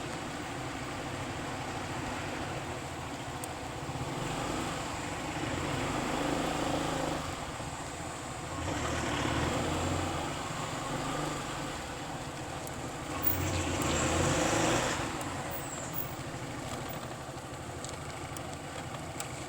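Motor vehicle and road traffic noise: a steady engine hum with road and wind noise, swelling louder three times as vehicles pass close.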